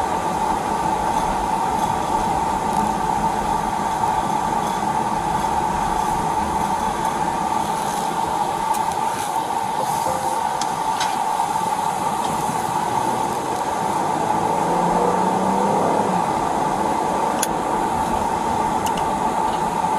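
Steady road and engine noise inside a moving Ford police vehicle's cabin, picked up by a chest-worn body camera. The engine pitch rises briefly about three quarters of the way through as the vehicle speeds up. There are a few faint clicks.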